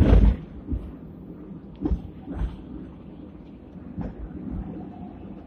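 Hong Kong Millennium tram No. 169 running along its street track, heard from inside the car: a steady low rumble of wheels on rail, with a heavy knock at the start and a few lighter clunks.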